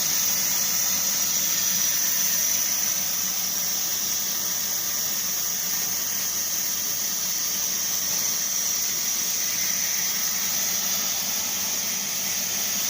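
CNC plasma cutter's torch arc running steadily: a constant hiss of cutting air with a high-pitched tone held above it.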